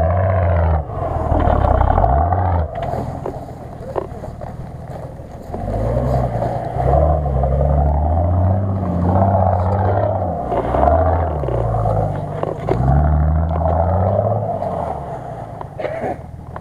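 Off-road SUV's engine revving up and falling back about six times as it pulls up a muddy slope, with a steady rushing noise underneath.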